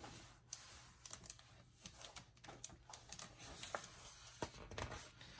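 Faint paper sounds of a picture book's pages being handled and turned: light rustling with scattered small clicks and taps.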